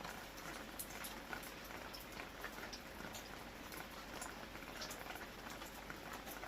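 Steady rain, with many small drops ticking close by several times a second.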